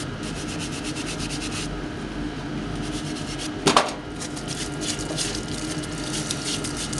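Hand brush scrubbing a steel tool fresh out of an electrolysis tank, in quick back-and-forth strokes of several a second, loosening the residue. The strokes pause briefly, and there is one sharp metal clank a little past halfway.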